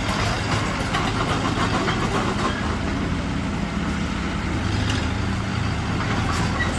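Diesel engine of heavy earthmoving machinery running steadily, a low drone whose pitch shifts slightly partway through.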